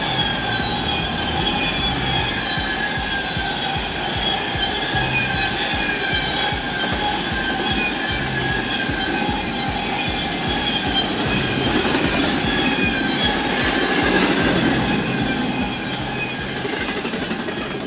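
Railcar wheels squealing against the rails as a heavy freight train rolls along: a sustained high-pitched squeal that drifts slowly in pitch, over a low, regular clatter.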